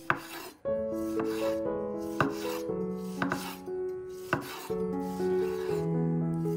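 Chef's knife slicing through a tomato on a wooden cutting board, the blade knocking the board about once a second, over soft background music.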